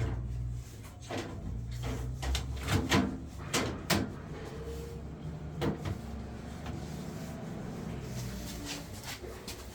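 A series of sharp knocks and clicks, bunched in the first four seconds with one more near the six-second mark, over a low steady hum.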